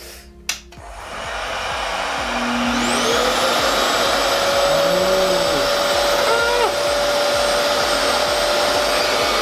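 Revair reverse-air hair dryer's base unit switched on with a click, its motor spinning up over about two seconds into a steady, loud rush of suction airflow with a rising whine that settles on one steady pitch. It is running on the warm setting at speed 5.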